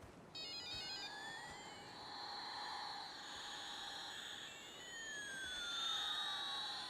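Electronic tones sweeping up and down in crossing pairs over a steady hiss, with a quick run of stepped beeps in the first second; the whole sound cuts off abruptly near the end.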